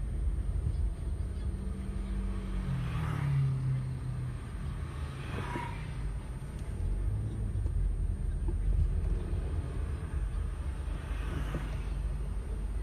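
Low, steady rumble of a car's engine and road noise heard inside the cabin while the car creeps along in traffic. About three seconds in, the engine note drops in pitch.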